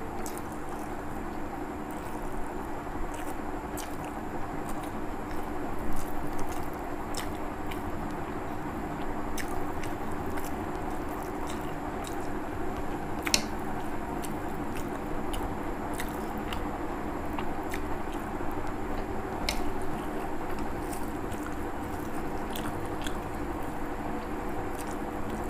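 Close-up chewing and mouth sounds of a person eating soft rice with fried egg and mashed potato by hand, with soft squishes and scattered sharp clicks as fingers mix food on the plate. A steady low hum runs underneath.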